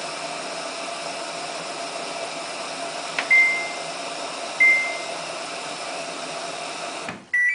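Samsung washing machine's control panel beeping twice at button presses over a steady hum and hiss from the machine. Near the end the hum cuts off and the panel plays a short jingle of several notes as the machine is switched off.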